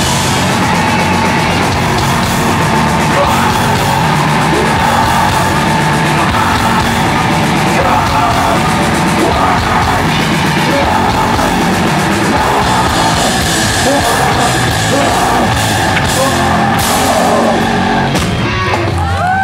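Heavy metal band playing live at full volume, with distorted guitars, drums and shouted vocals, heard from within the crowd. The dense wall of sound thins out near the end of the song.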